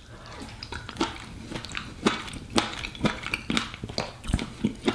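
Close-up mouth sounds of chewing a spoonful of pea stew, a run of small wet clicks at an irregular pace. Near the end a metal spoon knocks in the ceramic bowl.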